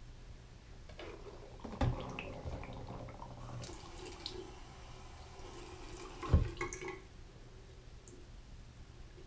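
A resin 3D-printer vat being washed with dish soap in a bathroom sink: water sloshing and dripping with handling noise. There are two sharp knocks, about two and six seconds in, and the second is louder.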